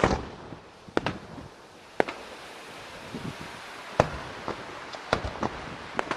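Aerial firework shells bursting in a display: sharp bangs roughly a second apart, with several coming closer together near the end.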